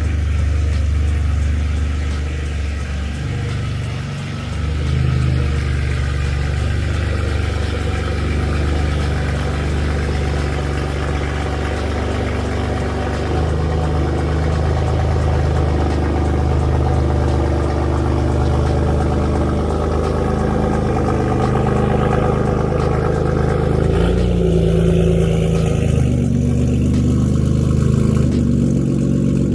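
A BMW M car's engine running at low speed, idling and rolling with small changes in revs a few times.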